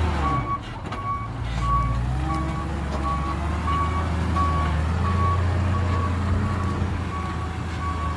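Heavy vehicle's reversing alarm beeping about every half second, one steady tone, over its engine running low and steady.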